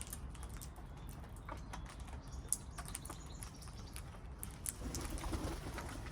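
Wild parrots making faint, scattered clicks and rustles, with no calls; loud squawking stops just before.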